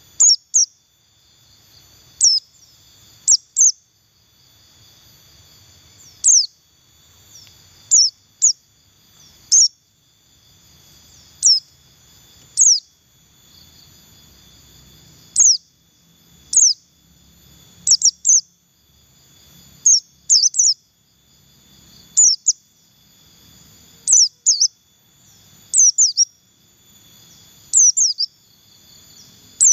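A buxtoni white-eye calling in short, sharp, high chirps that drop steeply in pitch, given singly or in quick pairs and threes every second or two, over a faint steady insect hum.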